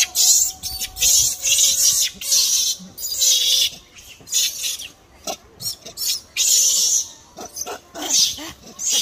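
Macaques screaming in repeated shrill bursts, each under a second long, with shorter sharp squeaks in the second half, as they fight over a baby monkey.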